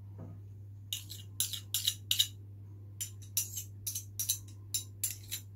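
Metal spoon stirring a brown sugar scrub in a small glass bowl, clinking against the glass in quick, irregular strikes from about a second in. A steady low hum runs underneath.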